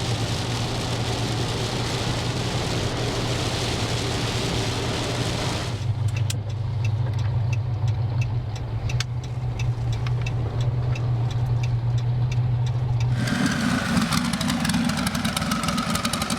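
A vehicle engine drones steadily under a wide hiss of wet road and rain noise. About six seconds in the hiss drops away, as if the vehicle has slowed and stopped, leaving the engine idling with a light, regular ticking. Near the end a different, higher engine note takes over, with a slowly falling whine.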